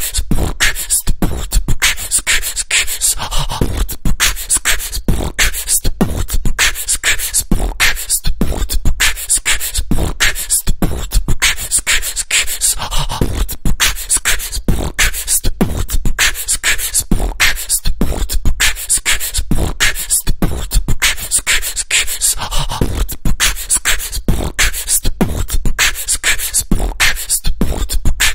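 Vocal beatbox music loop: mouth-made kick, snare and hi-hat sounds in a steady, fast rhythm, with a short vocal phrase coming back about every ten seconds.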